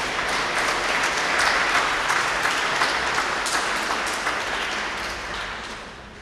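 Audience applauding, steady at first and fading out near the end.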